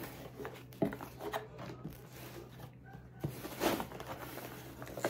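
A delivery parcel being opened by hand: packaging rustling and tearing in short spells, with a sharp click about a second in and a louder scraping swish past the halfway point, over a low steady hum.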